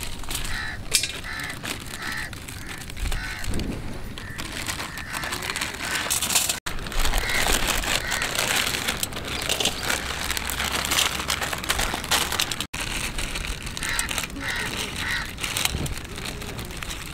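Plastic instant-noodle wrappers being torn open and crinkled by hand, a continuous crackly rustling with many small clicks.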